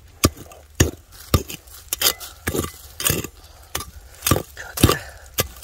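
A hand digging tool striking and scraping stony, hard soil in a steady rhythm of sharp knocks, about two a second, a few of them dragging into a short scrape.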